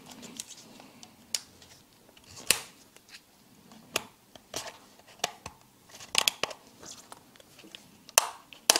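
Plastic housing of a Panasonic HC-V180 camcorder cracking and clicking as a panel is pried off, its snap clips popping loose in a string of sharp clicks, the loudest near the end, with glove handling noise between them.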